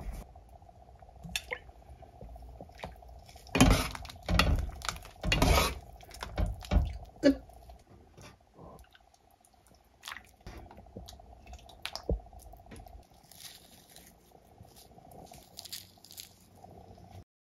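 Metal ladle clanking and scraping against a pot and a ceramic bowl as soup is ladled out, with a cluster of loud clanks in the first half and lighter scattered taps later. A steady faint hum runs underneath.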